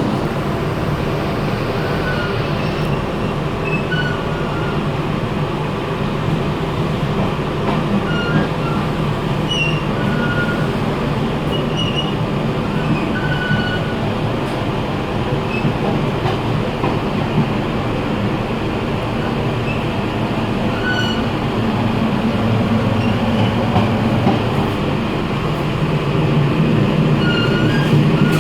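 Taiwan Railway Fu-Hsing passenger coach running, heard at the gangway between cars: a steady loud rumble with short high squeals scattered throughout, growing a little louder near the end.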